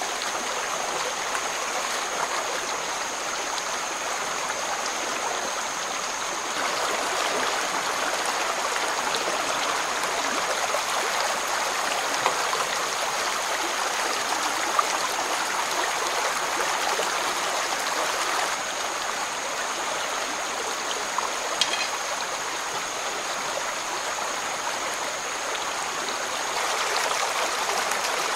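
Stream water flowing and burbling steadily, with a thin, steady high-pitched tone over it and a few faint clicks.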